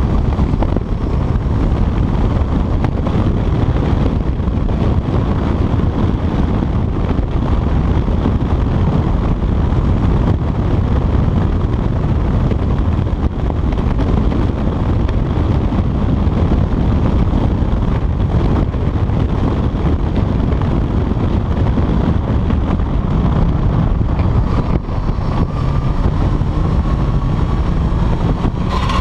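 Wind buffeting a chest-mounted action camera's microphone on a moving Honda CBR motorcycle, with the engine running underneath. Near the end the engine note rises.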